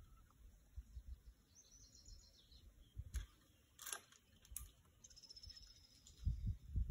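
Faint outdoor quiet with a small bird twice giving quick runs of high-pitched chirps, a few sharp clicks in the middle, and low rumbles near the end.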